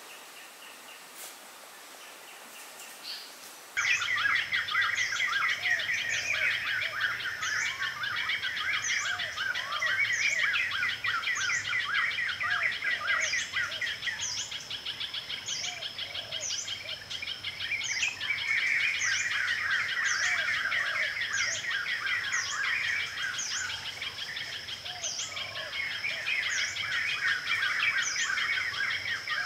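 A dense chorus of many birds chirping, with a repeated high call about every second and a steady high-pitched buzz behind it, starting suddenly about four seconds in.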